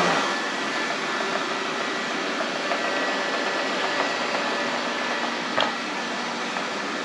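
Lefant M210B robot vacuum running with a steady whir and a faint high whine, with one brief tap about five and a half seconds in.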